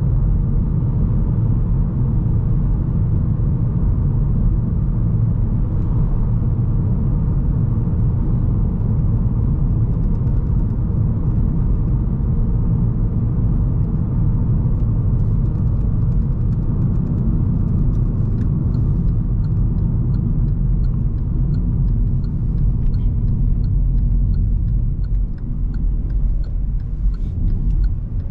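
Cabin noise of a 2020 Hyundai Elantra SEL on the move: a steady low rumble of road noise and its 2.0-litre inline-four engine. From about halfway, a faint regular ticking comes in, the turn signal as the car nears a turn.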